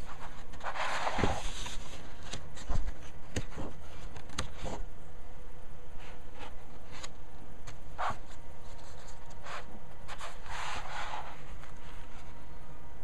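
Paper pages of a magazine being handled: two short rustles, one about a second in and one near the end, with a few light clicks and taps in between, over a steady low hum.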